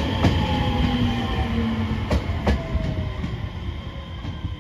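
JR Shikoku 7000 series electric train rolling slowly into the station as it slows to stop, with a whine that falls in pitch and a few clacks of wheels over rail joints.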